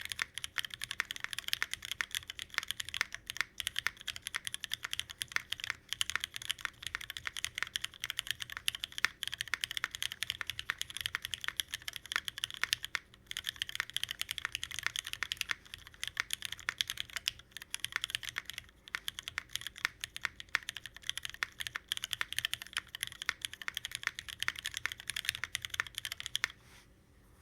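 Fast, continuous typing on a custom CherryB NEO87 mechanical keyboard with lubed, filmed Cherry Hyperglide MX Black linear switches on an aluminium plate, capped with JTK Night Sakura keycaps. It is a dense stream of keystroke clacks that stops suddenly near the end.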